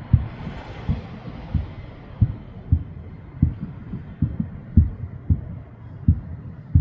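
Distant fireworks bursting in a rapid series: low, dull booms about one every two-thirds of a second.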